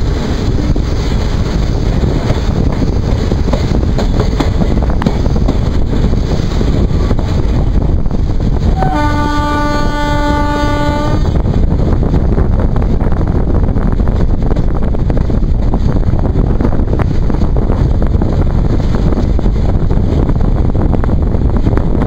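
A WAP4 electric locomotive's air horn sounds one blast of about two seconds, about nine seconds in, heard from a coach further back in the train. Under it the train runs on steadily, with the rumble of the coaches on the rails and wind on the microphone.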